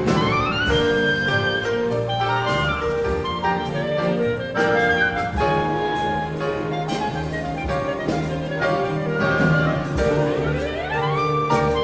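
Solo clarinet playing fast runs over a full orchestra, with a steady percussion beat underneath. Quick rising runs sweep up at the start and again near the end.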